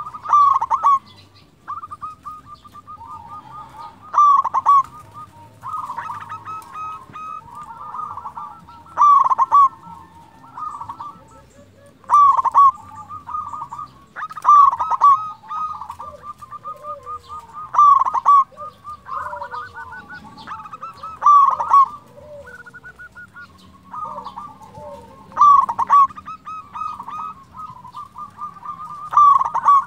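Zebra dove (perkutut) singing its cooing song. About ten loud phrases come roughly every three seconds, each opening sharply, with softer rapid trilling coos between them.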